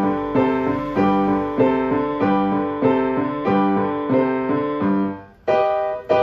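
Kawai grand piano played in a steady, even rhythm, a note pattern struck about every 0.6 s. Just after five seconds there is a brief break, then two final chords ring out.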